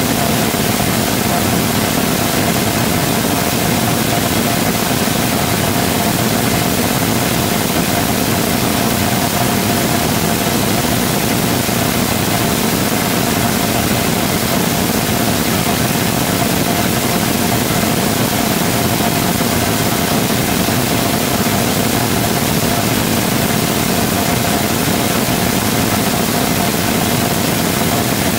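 3D-printed Rotating Detonation Rocket Engine combustor firing at steady thrust: a loud, even rushing noise with a steady tone held under it, with no change in pitch or level.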